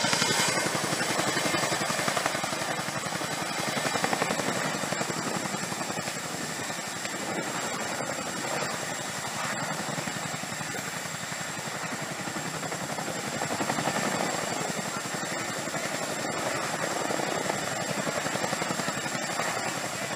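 RAF Chinook tandem-rotor helicopter hovering with underslung loads: a steady, rapid beat from its two rotors, with a thin high whine over it.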